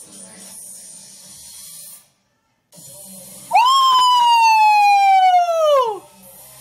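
A woman's long, high-pitched cry of excitement, about two and a half seconds long, starting high and sliding slowly down, then dropping sharply in pitch at the end. It is loud over faint dance-battle music.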